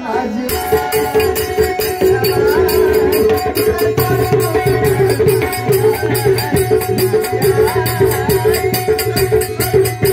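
Instrumental passage of Marathi devotional folk music: a steady held chord under a fast, even drum beat with a wavering melody line above, no singing.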